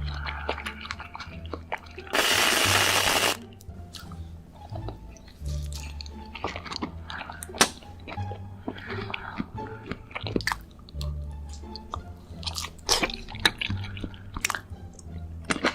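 Close-miked eating: crunchy bites and chewing, with background music carrying a repeating bass line underneath. About two seconds in, a loud, even hiss lasts for roughly a second.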